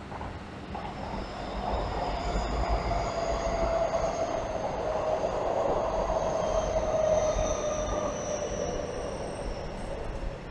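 Seibu Railway electric train running by. Its rumble builds over the first two seconds and eases near the end, with a steady high whine that slowly falls in pitch throughout.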